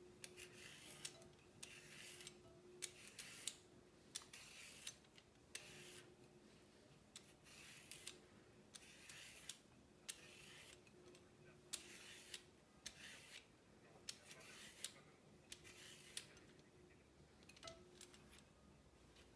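Faint scraping of a swivel vegetable peeler shaving the skin off white asparagus spears, in quick repeated strokes about two a second.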